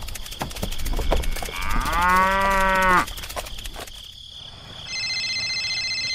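A cow moos once, a single call about a second long, about two seconds in, after a few light taps. Near the end comes a steady electronic tone, a mobile phone ringing.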